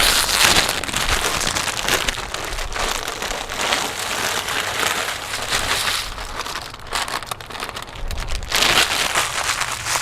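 Pot of water at a rolling boil, a steady bubbling crackle that swells and eases every second or two.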